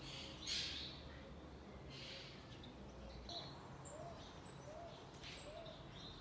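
Monk parakeets calling: about five short, harsh calls, the loudest about half a second in, over a low steady hum.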